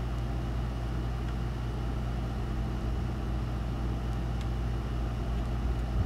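A steady low hum with a few faint scattered ticks.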